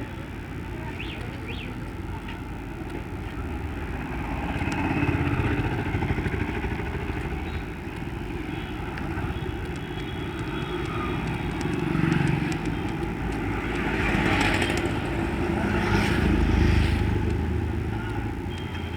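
A motorcycle engine running on the move, with steady road and wind noise that swells louder a few times.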